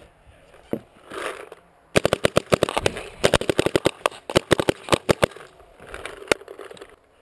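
Paintball markers firing rapid strings of shots, a sharp pop each, several a second, from about two seconds in until just past six.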